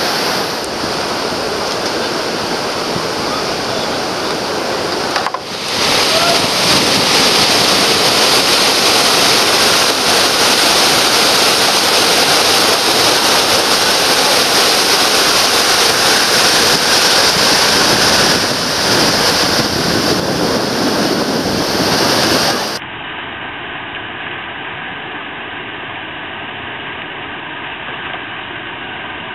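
Whitewater river rapids and a small waterfall, a loud, steady rush of churning water. It jumps louder and brighter about five seconds in, then turns quieter and duller about three quarters of the way through.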